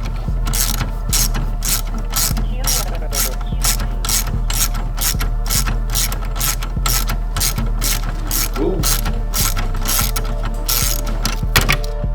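Hand ratchet wrench clicking in a steady rhythm, about three clicks a second, over a steady low hum.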